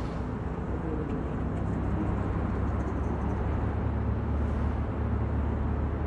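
Steady low rumble of a car driving at highway speed, heard from inside the cabin, with wind rushing in through an open window.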